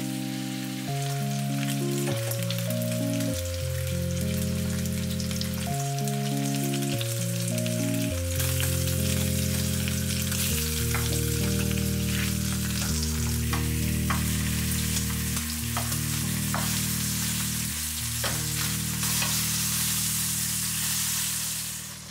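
Beef short ribs searing in a hot frying pan: a steady sizzle that grows louder about eight seconds in, with a few light clicks as metal tongs turn the meat. Soft background music with slow held chords plays under it.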